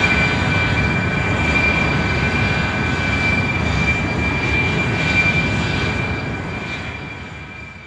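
Airplane engine running: a steady rumble with a high, even whine over it. It fades out over the last couple of seconds.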